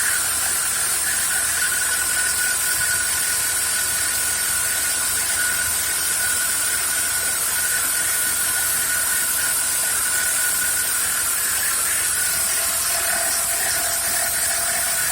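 CNC router spindle running with a 3-flute aluminum end mill cutting a plate: a steady high whine over a hissing cutting noise. The tone changes about twelve seconds in, and the sound cuts off suddenly at the end.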